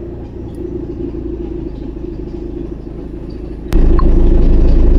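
Land Rover Freelander engine running with an abnormal noise from the engine side, which the owner suspects comes from the alternator belt and its tensioner. A click comes a little under four seconds in, after which the low sound becomes much louder and stays steady.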